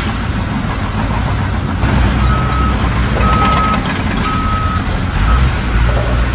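A heavy vehicle's engine running with its reversing alarm beeping: three steady single-pitch beeps about a second apart starting about two seconds in, then a fourth cut short.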